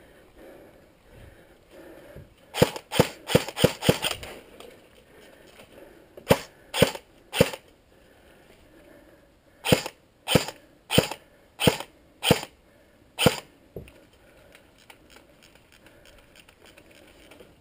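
Airsoft rifle firing single shots at close range: a quick string of about six, then three spaced about half a second apart, then six more.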